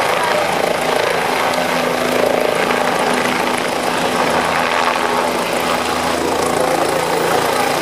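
Air-ambulance helicopter running steadily at close range, its engine and rotor loud as it hovers low to set down.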